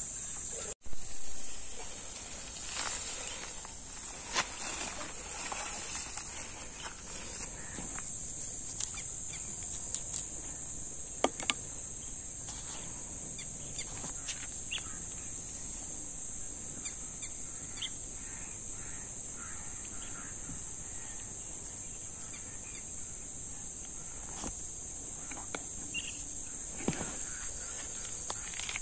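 A steady high-pitched chorus of insects, with a few faint clicks and knocks scattered through it.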